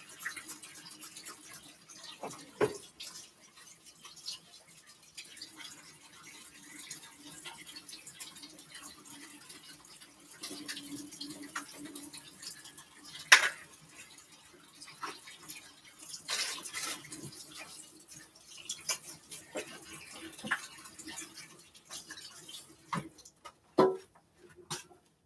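Kitchen tap running into a sink as hands are rinsed and washed, with scattered clicks and knocks, one sharp knock about halfway through.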